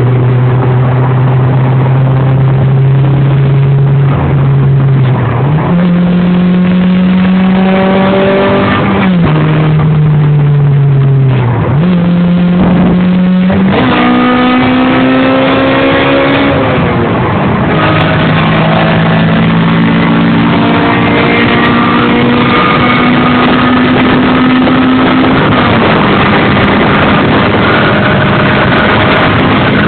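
An engine running, its speed held steady for a few seconds at a time and then raised or dropped, several times over.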